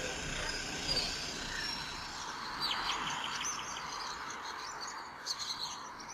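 High, bird-like chirps and twitters over a steady hiss, thickest in the middle and again near the end.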